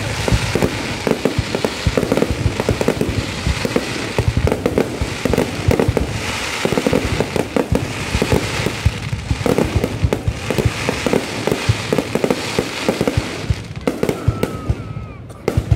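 Aerial fireworks display: a dense, rapid barrage of bangs and crackles from bursting shells and rising comets, thinning out near the end.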